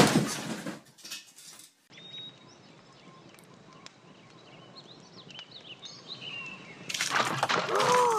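A loud knock at the start. Then small birds chirp over quiet outdoor background. Near the end comes a loud clattering crash as a picnic table tips over under a man standing on it, with a falling yell.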